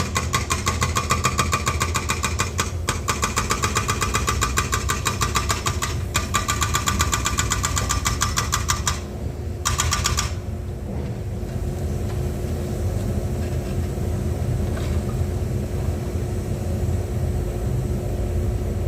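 Excavator engine running steadily under a fast, even metallic clatter of about ten strikes a second. The clatter breaks off briefly twice, stops about nine seconds in, comes back for a moment, then leaves the engine running on its own.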